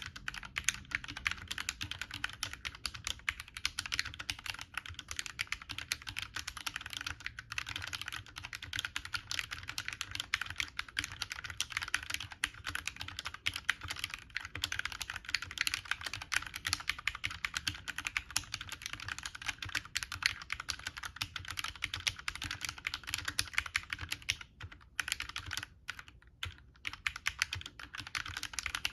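Fast, continuous typing on a Glorious GMMK Compact keyboard in its stock, undampened case, fitted with lubed CIY Evo Red linear switches and OEM-profile keycaps, with short pauses about seven seconds in and again near the end.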